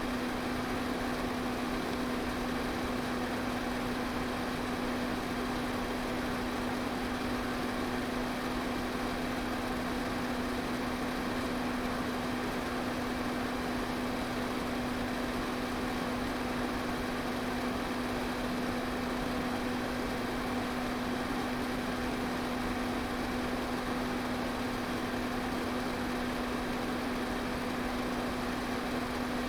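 Electric pedestal fan running steadily: an even rush of air over a constant motor hum.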